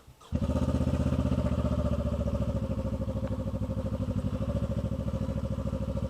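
Motorcycle engine running steadily with an even, rapid pulse, cutting in abruptly about a third of a second in.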